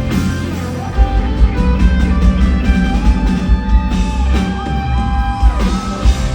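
Live rock band playing an instrumental passage: electric guitar over steady drums and bass, with sustained notes sliding in pitch near the end.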